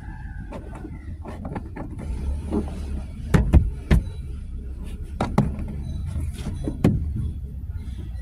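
A run of irregular knocks and clicks from hands working at a car's plastic interior trim while tucking in a dash cam wire, with several sharper knocks in the middle, over a steady low rumble.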